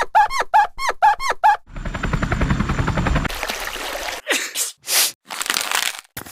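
Cartoon sound effects from a video editor: a quick run of short, pitched bloops at about five a second, then a loud rattling burst a little under two seconds in, followed by hissing and a few short swishes.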